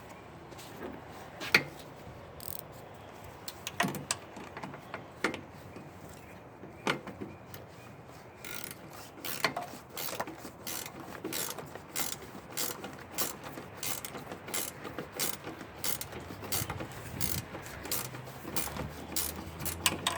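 Ratcheting hand tool clicking while bolts are tightened: a few separate clicks and knocks at first, then from about eight seconds in a quick, steady run of ratchet clicks, several a second.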